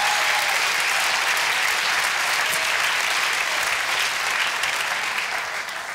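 Studio audience applauding steadily, dying away near the end.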